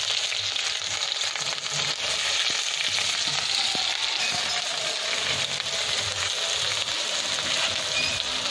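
Chopped onions frying in hot mustard oil in a metal kadai with a steady sizzling hiss, stirred with a metal spatula.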